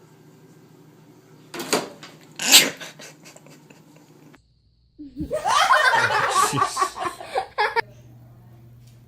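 Two short sharp noises about a second apart, then after a brief break a few seconds of a person laughing.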